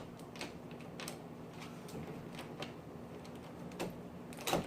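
Small clicks and rattles of a doorknob being worked off its spindle while its release catch is held pressed down, with a louder knock near the end.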